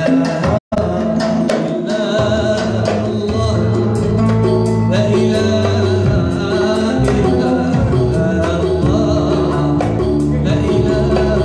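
A man singing an Arabic song into a microphone, accompanied live by oud, flute and keyboard with light percussion. The sound cuts out completely for a split second just under a second in.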